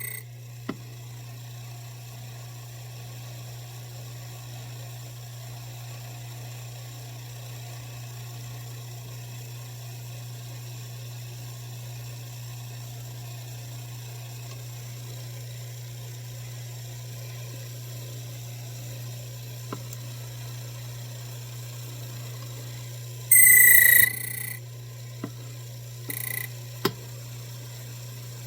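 Key-cutting machine motor running with a steady low hum. About 23 seconds in, the cutter bites into the key blank in one loud, shrill burst of about a second, followed by a few small clicks.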